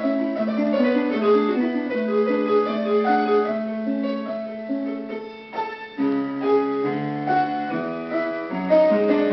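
Instrumental music led by a piano playing a melody of short notes.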